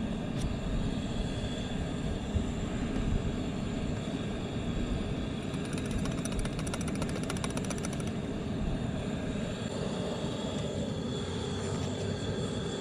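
Coleman propane camp stove burner running with a steady low rush, with a few seconds of rapid light ticking about six seconds in.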